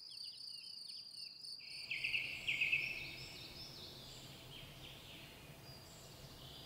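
Outdoor insect ambience: a steady high-pitched trilling with small chirps, then about two seconds in a louder run of rapid chirping that fades back to a steady high trill.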